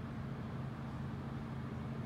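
Steady low mechanical hum of the cruise ship World Dream's engines carried across the harbour water, with an even rushing noise underneath and no change in level.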